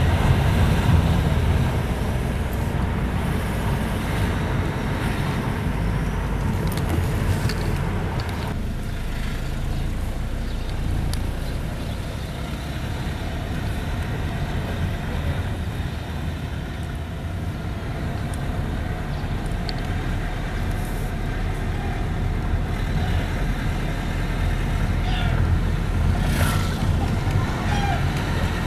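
Steady low rumble of a car's engine and tyres heard from inside the cabin while driving slowly. The higher hiss drops away about eight seconds in.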